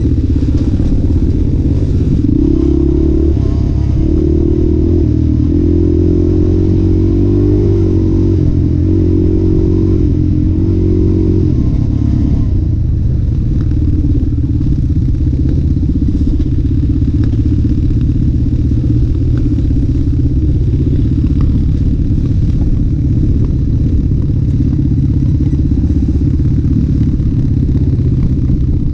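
Off-road vehicle engine running along a dirt trail, its pitch rising and falling with the throttle during the first dozen seconds, then a steady drone, with some rattling.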